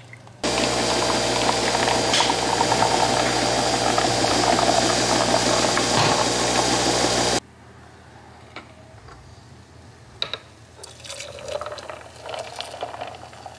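Coffee machine brewing: a steady pump hum with coffee pouring into a cup. It starts about half a second in and cuts off abruptly about seven seconds later, followed by faint clicks and handling.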